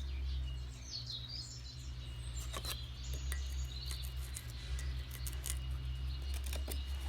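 Campfire crackling, with sharp pops and ticks scattered through, over a steady low rumble. A small bird chirps a few times about a second in.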